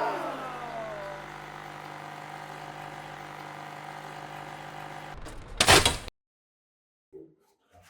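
Dolce Gusto capsule coffee machine running with a steady mechanical hum of several fixed tones. About five and a half seconds in comes a short loud burst of noise, and then it goes dead: the sign of the machine failing.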